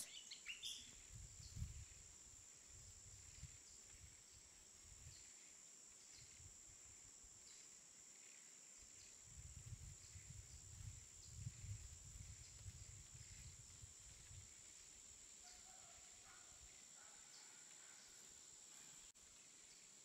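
Near silence: faint room tone with a steady high-pitched whine, and soft low bumps now and then.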